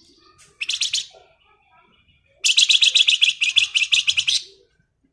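A flamboyan songbird's rapid, harsh chattering trill, the 'ngebren' song: a short burst about half a second in, then a longer burst of about two seconds, each a fast run of repeated high notes at roughly eight a second.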